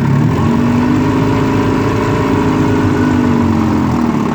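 1954 Evinrude Super Fastwin 15 hp two-cylinder two-stroke outboard motor running steadily in reverse, its pitch rising slightly toward the middle and settling back down.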